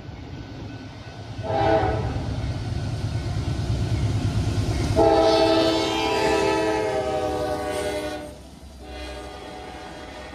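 Norfolk Southern diesel freight locomotive passing close with its multi-chime horn sounding, typical of a grade-crossing warning: a short blast about a second and a half in, a long blast from about five seconds to eight that drops slightly in pitch as the locomotive goes by, and another blast starting near the end. The low rumble of the diesel engines runs under the first blasts.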